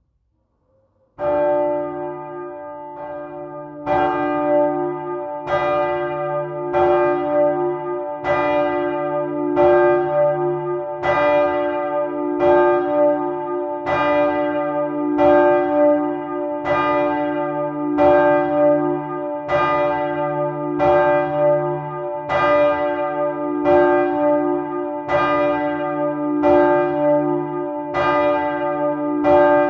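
A swinging bronze church bell, one of the bells cast by Michiels in 1957, starts to ring about a second in. Its clapper strikes at an even swinging rhythm, about three strokes every two seconds, and each stroke rings on into the next. The strokes grow louder after the first few seconds.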